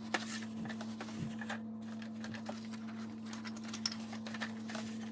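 Faint rustling and light clicks of the plastic fan parts being wiped with a towel and handled, over a steady low hum.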